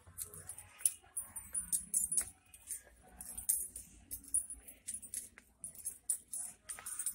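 Light, irregular metallic jingling and clicking, a quick scatter of small clinks throughout, over a faint low background hum.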